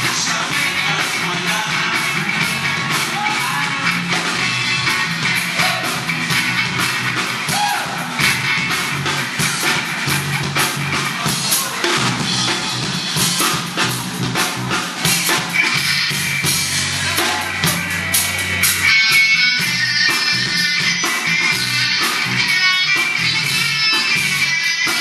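Small band playing a rock song live, with a drum kit keeping a steady beat under guitar and singing.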